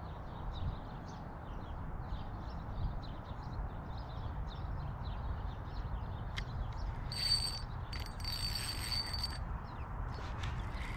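A fishing reel being cranked in two short runs, about seven and eight seconds in, a whirring with a high ringing tone, over a steady low rumble.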